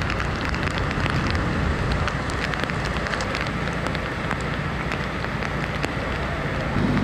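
Heavy rain falling, with muddy floodwater running: a steady wash of noise sprinkled with many small drop ticks.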